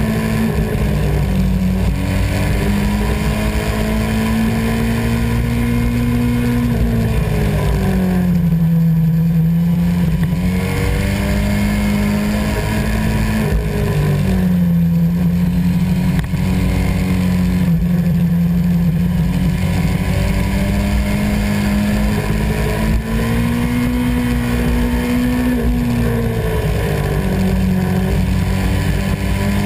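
Sport motorcycle engine running hard while riding through bends. The engine note drops and climbs again several times as the rider rolls off and gets back on the throttle, with constant wind rush over the bike.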